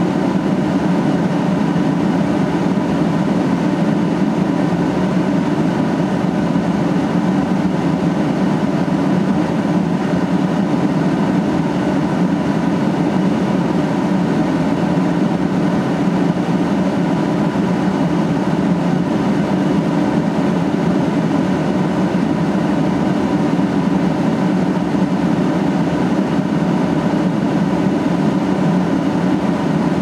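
A loud, steady mechanical hum that stays the same throughout, with no separate impacts or voices.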